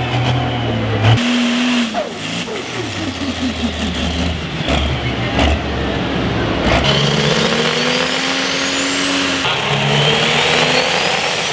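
Turbocharged diesel engine of a John Deere pro stock pulling tractor running hard under load, with a high turbo whine rising steadily in the second half. The sound changes abruptly several times.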